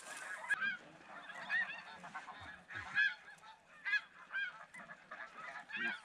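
A flock of snow geese calling: many short, high honks, overlapping and scattered a few each second.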